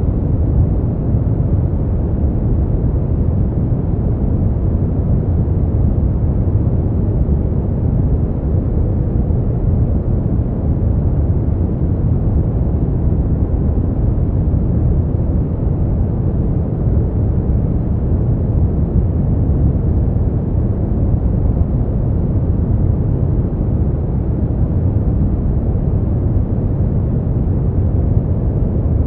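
Smoothed brown noise: a steady, deep rumbling hiss, its energy in the low end and no high frequencies, with no change throughout.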